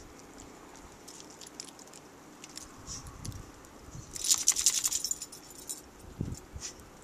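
Dog's metal collar tags jingling as it moves through deep snow, with a dense burst of jingling for about a second midway and a couple of soft thuds.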